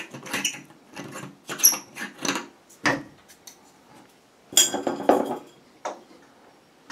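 Compact fluorescent spiral bulb being unscrewed from a ceiling fixture's socket and handled: a run of small clicks, scrapes and light clinks, with a sharp knock about three seconds in and a louder cluster of clatter around five seconds in.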